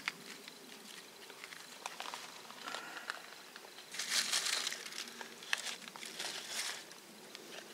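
Dry twigs and tinder rustling and crackling as small twigs are laid over a freshly lit jute tinder nest on birch bark. The crackles are irregular, with a louder rustle about four seconds in.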